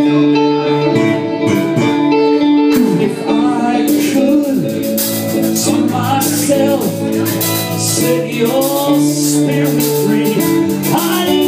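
Live rock band playing: sustained guitar chords under a male lead vocal, with cymbals coming in about four seconds in.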